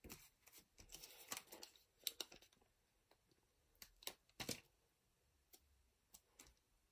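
Faint crinkles and scattered clicks of a clear plastic pack sleeve being handled while a void-seal sticker is pressed onto it, with the sharpest clicks about two seconds in and midway through.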